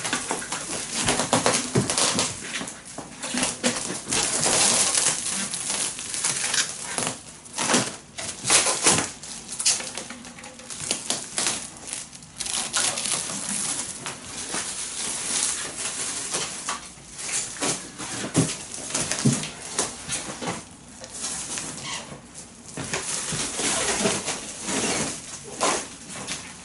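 Plastic stretch wrap being pulled tight off a hand roll and wound around a large cardboard box, with a dense, irregular crackling as the film peels off the roll and clings to the cardboard.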